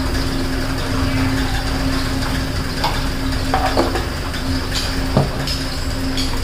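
Steady low hum, with a few light clicks and knocks as a plastic spice box is handled and its lid closed. The sharpest knock comes about five seconds in.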